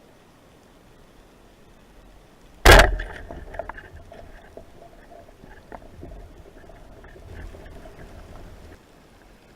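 Speargun firing underwater: one sharp, loud crack about two and a half seconds in, followed by several seconds of scattered knocks and clatter over a low rumble that stop abruptly near the end.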